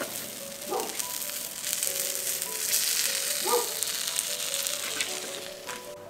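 Food sizzling and crackling in a cast-iron pan on a braai grill as the pot pies bake: a steady hiss with scattered pops. Background music with held notes plays under it.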